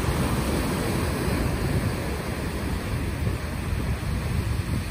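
Small waves breaking and washing up a sandy beach, with wind buffeting the phone's microphone as a steady low rumble.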